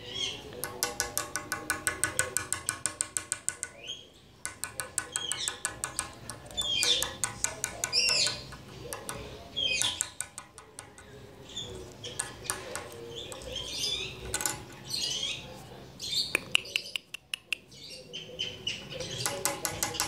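Indian ringneck parakeet chirping and squawking in short rising and falling calls, between several rapid runs of clicks at about seven a second.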